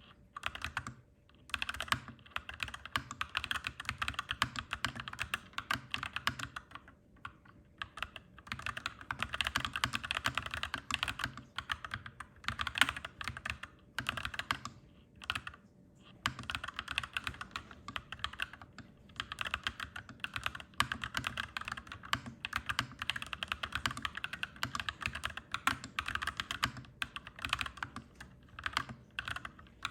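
Clacky mechanical keyboard being typed on in quick, continuous runs of key clicks, broken by a few short pauses.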